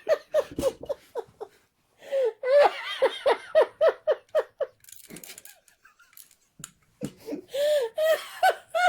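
Laughter in runs of quick ha-ha pulses, with a quiet gap of about two seconds after the middle before the laughing starts again near the end.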